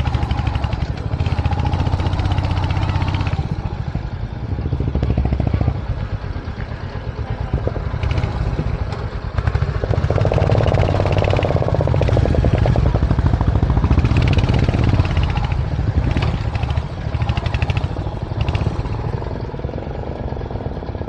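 Royal Enfield motorcycle engine running under load on a steep climb, its level rising and falling with the throttle.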